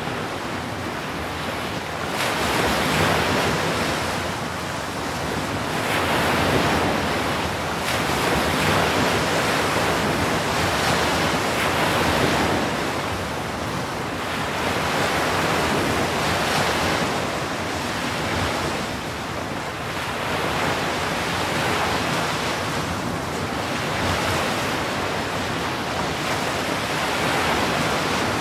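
Ocean surf breaking on the shore: a continuous rushing wash that swells each time a breaker comes in, every three to four seconds.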